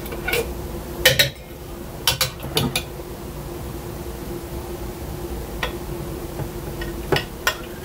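A metal spoon clinks a few times against the glass of a French press as coffee grounds and hot water are stirred. Then hot water pours steadily from an electric kettle into the press, with a few more light clinks near the end.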